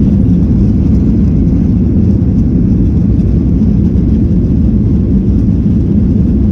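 A Boeing 737-800's CFM56 jet engines at takeoff thrust, a steady low rumble.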